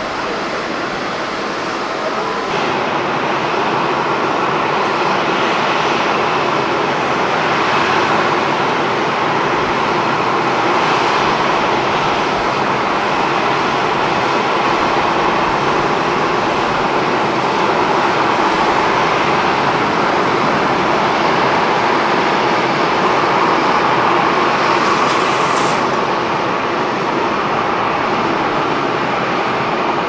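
Boeing 737-800 jet engines running at high power as the airliner rolls along the runway: a loud, steady roar.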